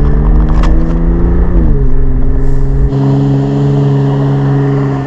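Exhaust of a 2018 Jeep Wrangler JL's 3.6 L Pentastar V6 through a Dynomax axle-back muffler delete, with the front muffler retained. The engine pitch creeps up a little, drops back about one and a half seconds in, then holds steady. A deep low rumble underneath stops about three seconds in.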